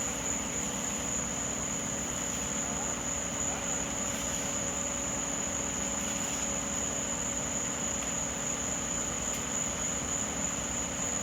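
A steady low mechanical hum with a continuous high, even whine over it, unchanging throughout.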